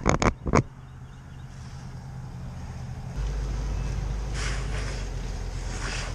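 A motor vehicle's engine running with a steady low rumble that steps up and grows louder about three seconds in. A few sharp knocks come in the first half second, and two brief rustling scrapes come later.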